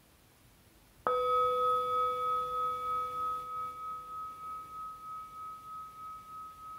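Metal singing bowl struck once with a mallet about a second in, then ringing on with a low and a higher tone that slowly fade, wobbling in loudness about twice a second.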